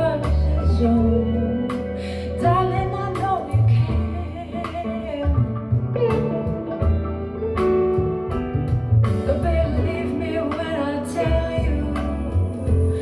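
Blues song with guitar and a woman singing.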